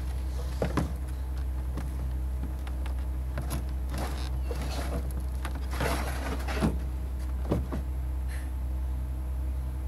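Catamaran kayak being pushed up over a pickup's tailgate into the truck bed: several clunks and knocks as the hull meets the bed, a longer scrape about six seconds in as it slides, and another knock near the end. A steady low hum runs underneath.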